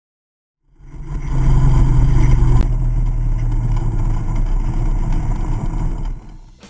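Harley-Davidson Fat Bob's V-twin engine running at highway speed, with wind noise on a handlebar-mounted camera. It fades in about a second in and fades out near the end.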